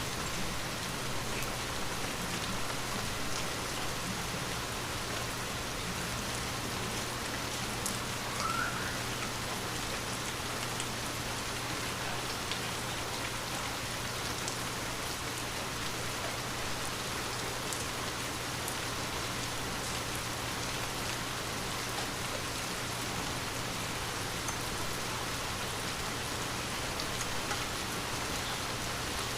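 Light rain falling steadily, with scattered drops ticking on surfaces.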